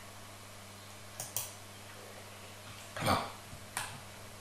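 Sharp clicks from working a computer: two close together about a second in and one more near the end, over a faint steady low hum. A short spoken word comes just before the last click.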